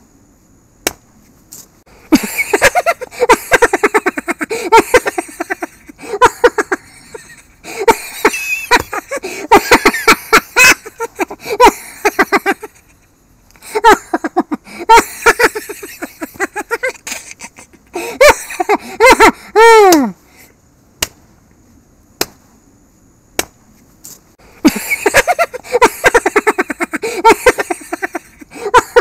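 Maniacal, Joker-style laughter in repeated bouts of rapid "ha-ha" pulses, with pauses between them. One bout, near the middle, ends in a long cackle that falls in pitch. Sharp clicks sound in the gaps.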